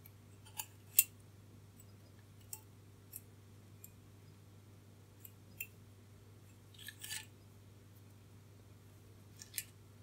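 Scattered light clicks and ticks of resistor wire leads and a small printed circuit board being handled as the resistors are fitted, the sharpest about a second in and a short rustling cluster about seven seconds in.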